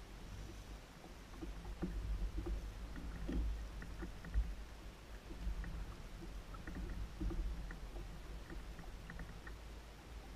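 Water lapping against the hull of a small fishing boat, over a low wind rumble on the microphone, with scattered light ticks and clicks.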